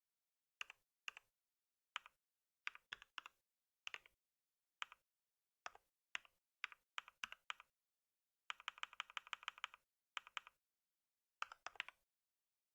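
Computer keyboard typing: single keystrokes and short clusters at an uneven pace, with a quick run of about a dozen keys a little past the middle, then a few last strokes.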